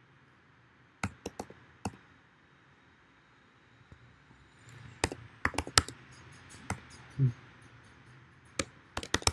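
Keystrokes on a computer keyboard, coming in short bursts: a few clicks about a second in, a quicker run around five to six seconds, and a few more near the end.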